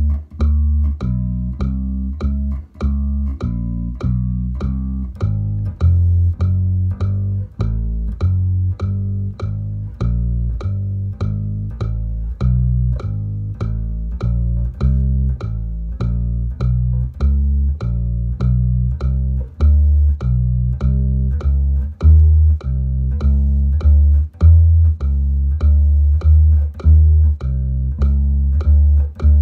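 Electric bass guitar played fingerstyle: an even, unbroken run of single low plucked notes, about two a second, stepping from fret to fret. It is a fretting-hand drill using the finger order 4-1-2-3.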